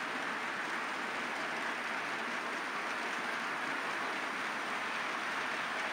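OO gauge model goods train running along the layout's track: a steady, even rolling hiss of the wagons on the rails.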